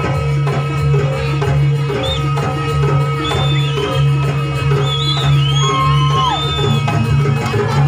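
Live Javanese folk ensemble accompanying a Kucingan dance: drums struck in a steady, regular rhythm over a sustained low tone, with high sliding notes weaving above.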